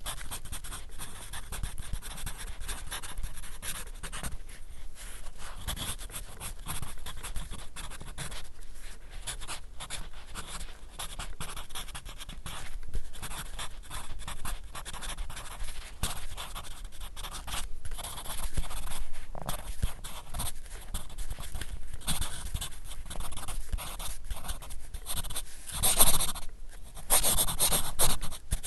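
Pencil writing on paper: a continuous run of short, irregular scratching strokes, with a louder, denser burst of scribbling near the end.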